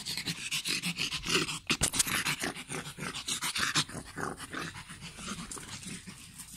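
A young pug breathing hard and making play noises as it wrestles on a lap, with rapid rustling of clothing close to the microphone. The sounds are busiest in the first four seconds and quieter after.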